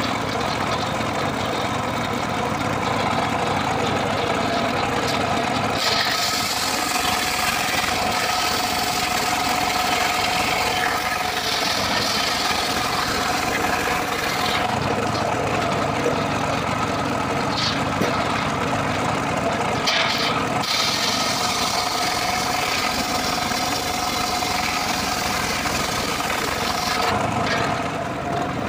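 Homemade circular-saw sawmill running steadily, its engine-driven blade humming, with long stretches of the blade ripping through a dry acacia log from about six seconds in and again from about sixteen seconds in.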